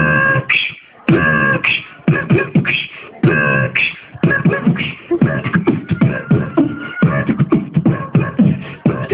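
Beatboxing: fast mouth-made drum sounds in a tight rhythm, with buzzing held notes at the start and about one and three seconds in, then a denser run of quick beats.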